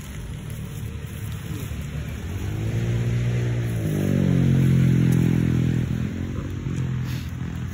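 A motor vehicle engine nearby, its pitch sliding up and down as it grows louder toward the middle and then eases off.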